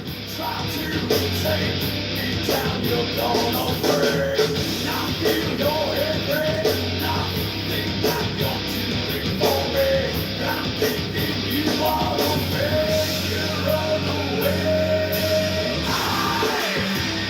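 Rock/metal music with a sung vocal over electric guitar, bass and drums, at a steady loud level.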